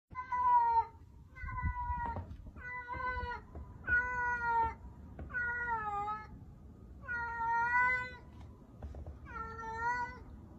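Female cat in heat giving her mating call: seven drawn-out meows, one about every second and a half.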